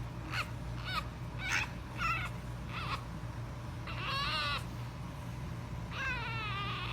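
A young pet animal crying: five short high-pitched calls about half a second apart, then two longer wavering cries.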